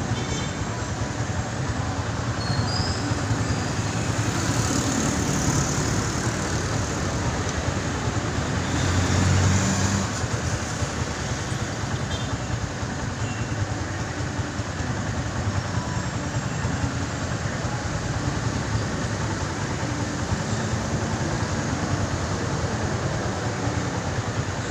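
Vehicle engine running slowly or idling, heard from inside the cab, with road traffic passing. There is a louder low rumble about nine seconds in.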